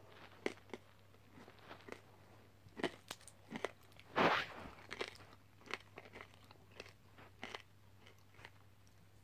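Quiet mouth noises of people sucking and crunching hard lollipops: scattered short wet clicks and smacks, with one longer, louder noise about four seconds in.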